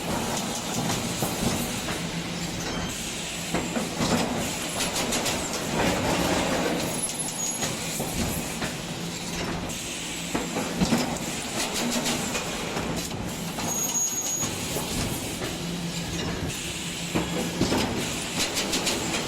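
Industrial wire-mesh panel machinery running: a continuous clatter of rapid clicks and knocks over a steady low hum.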